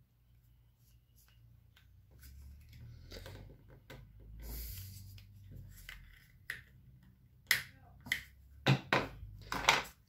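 Hard plastic marble-run pieces being handled, then a run of sharp clicks and knocks in the last few seconds as a part is forced against a hexagonal base plate, not yet seated.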